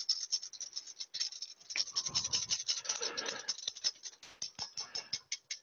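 Wire whisk beating egg yolks and sugar for a passion fruit sabayon in a metal bowl: a fast run of scraping strokes, about five or six a second, working the runny mixture up towards ribbon stage.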